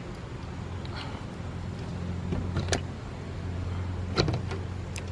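Sun oven being handled and opened: a few sharp clicks and knocks over a steady low hum.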